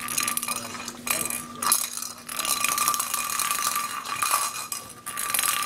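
Small pink cat-toy ball rattling and jingling as a kitten bats it about on a hard tiled floor, in quick irregular clicks with a thin ringing tone running through.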